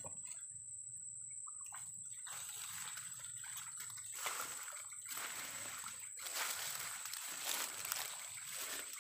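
Water sloshing and splashing in irregular bursts, over a steady high-pitched whine.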